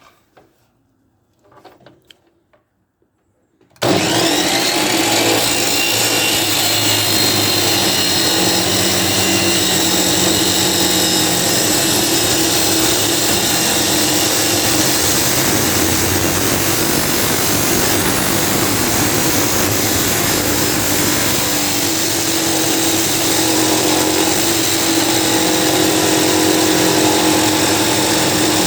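A few faint clicks, then about four seconds in a BestCraft EC553P abrasive chop saw with a 355 mm cut-off disc starts suddenly and runs loud and steady, grinding through metal.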